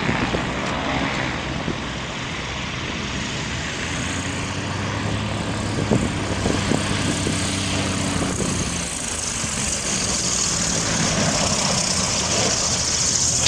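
Single-engine propeller plane's engine running steadily as the high-wing plane comes in low and lands on grass, the sound growing somewhat louder near the end as it nears.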